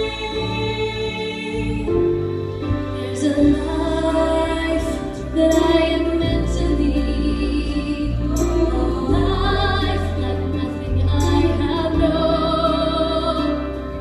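All-female show choir singing through microphones, with held notes in harmony over a backing of low bass notes and occasional percussion hits.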